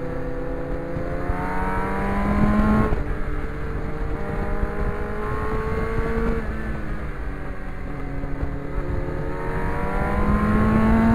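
Motorcycle engine pulling hard through the gears: the revs climb, drop at an upshift about three seconds in, climb again, drop once more about six seconds in, then rise steadily to the end.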